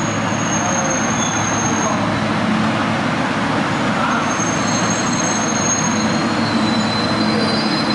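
Beijing Subway train pulling in alongside an underground platform: a loud, steady rumble of the moving train, with thin high-pitched whines coming in near the start and again in the second half.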